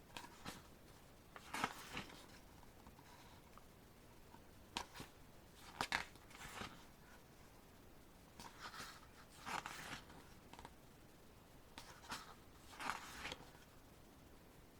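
Faint, short paper rustles every one to three seconds as the pages of an album photo book are turned and handled.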